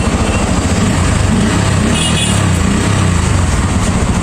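Bajaj Pulsar N160's single-cylinder engine running steadily after a self-start, its low firing pulses swelling slightly partway through.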